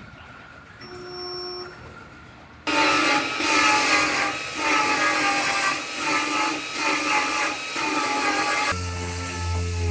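A power tool working metal on the truck's bed panel, starting abruptly about three seconds in and easing off and on every second or so, then changing to a deeper hum near the end.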